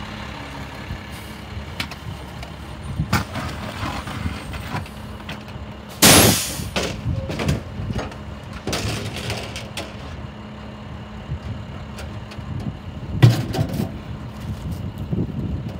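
Rear-loader garbage truck idling at the curb while refuse is tipped and thrown into its rear hopper, with scattered clattering knocks. About six seconds in there is one loud burst of air hiss from the truck's air brakes, and there is another sharp bang near the end.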